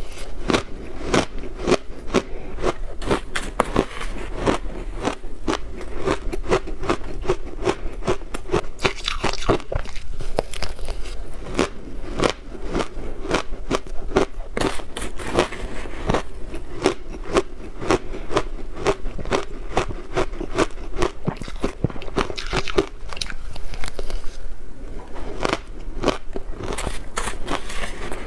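Close-up crunching of shaved blender ice dusted with milk powder, bitten and chewed by mouthfuls: a dense, continuous run of crisp crackling crunches.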